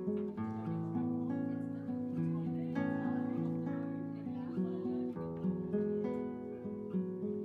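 Background music: acoustic guitar played in plucked and strummed chords.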